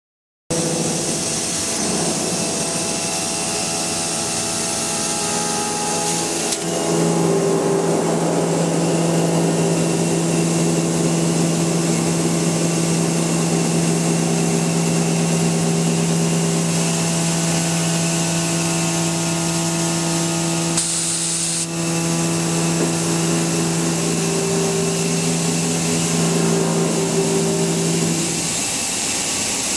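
Milling machine cutting a workpiece, a steady machining noise. About six seconds in, a steady pitched tone with overtones sets in, and it stops a little before the end.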